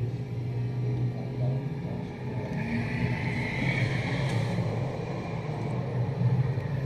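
A police minivan driving past on the street below: engine and tyre noise swells about two and a half seconds in, peaks, and fades again. Underneath it runs a steady low rumble of traffic.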